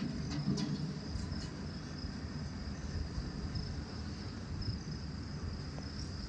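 Crickets chirping steadily, over a low rumbling background noise.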